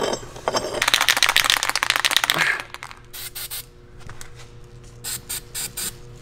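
Hand ratchet wrench clicking rapidly on the bolt of a steel subframe-mount reinforcement plate for about two seconds, then a few shorter, quieter clicks near the end.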